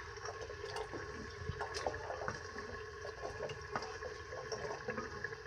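Watery curry boiling in a pot: a low steady bubbling with many small pops.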